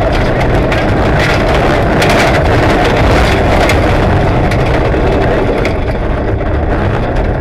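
Rally car engine running hard, heard from inside the cabin, with gravel and stones clicking and knocking against the underbody as the car drives a loose dirt road.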